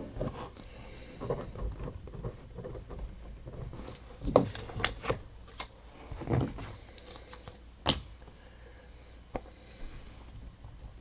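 Sparse, irregular light clicks and taps, a handful clustered in the middle, from small handling at a desk.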